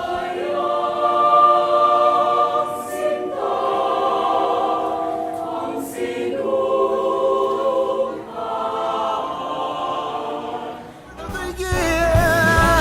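A choir singing unaccompanied, holding sustained chords in phrases of about three seconds with brief breaks between them. Near the end, fuller music with a bass line comes in.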